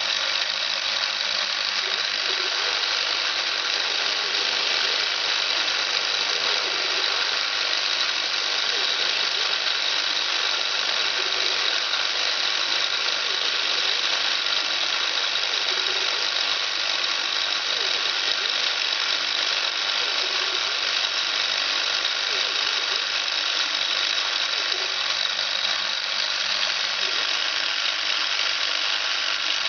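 Hobbymat BFE65 bench mill, converted to CNC, running steadily through a milling pass: a constant high-pitched whine over a dense mechanical hiss.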